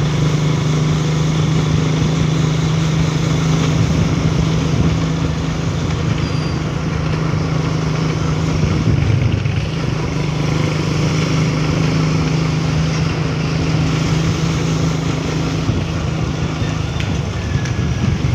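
Engine of the vehicle being ridden, running at a steady low hum at an even cruising pace, with road and wind noise heard from on board.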